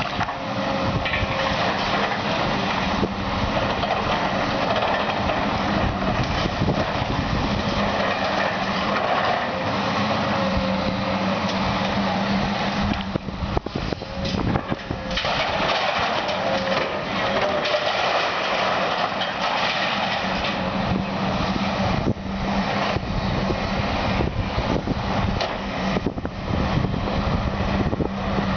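Heavy diesel demolition machinery running steadily, with continual crunching and knocking of debris being broken. It eases briefly about halfway through, then carries on.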